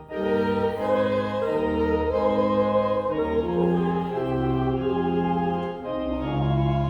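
A church organ playing hymn chords with voices singing along, the chords moving in steady steps of about half a second, after a brief breath-like break at the start.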